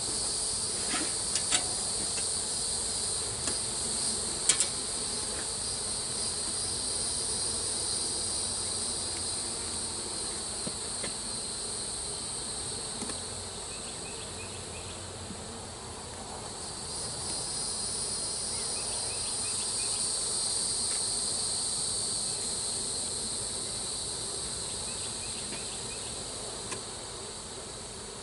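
Honeybees buzzing around an open hive under a steady, high-pitched insect chorus that fades in the middle and swells again. A few sharp clicks come in the first few seconds as the wooden frames are handled.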